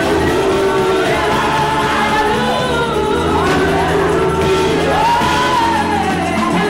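A choir singing gospel music with instrumental backing, a low bass line moving under the voices.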